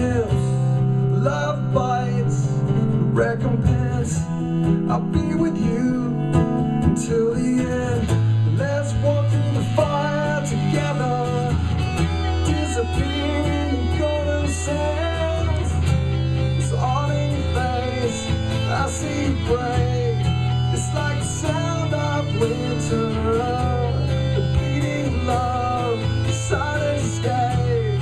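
Live acoustic rock performance: strummed acoustic guitar over low held notes that change every couple of seconds, with a sung vocal line.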